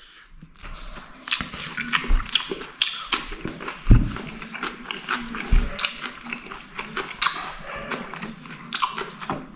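Close-up sound of a person eating rice and curry by hand: wet chewing and mouth smacks with fingers working the food on the plate, and a few dull thumps, the loudest about four seconds in.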